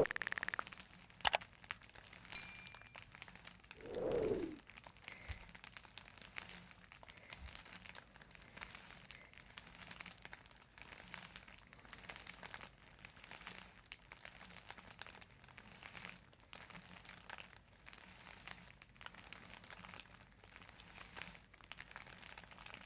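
Faint crinkling and rustling with many small scattered clicks. A few louder brief sounds come in the first few seconds, among them a sharp click and a short swelling sound.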